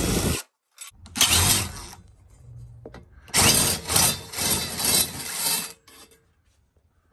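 Power drill-driver running in bursts, a short one about a second in and a longer one of about two and a half seconds around the middle, backing out the screws that hold an RV rooftop air conditioner's bottom plate to the roof unit.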